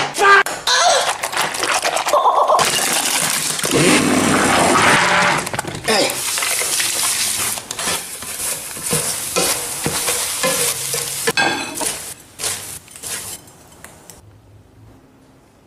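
A spoon stirring and scraping through a mixture in a dish, and a spatula scraping crumbly food onto a plate, with scattered clicks and knocks. The sound thins out and fades near the end.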